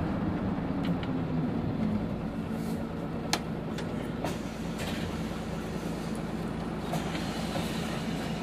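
Hino BJG-HU8JLFP hybrid city bus under way: a steady low drivetrain hum whose tone falls slightly over the first two seconds. A few sharp clicks and rattles sound over it, the loudest about three seconds in.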